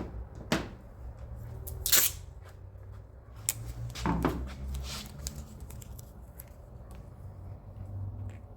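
Scattered taps, rustles and a short falling squeak as a rubber trunk weatherstrip is handled and pressed into its channel, over a low steady hum.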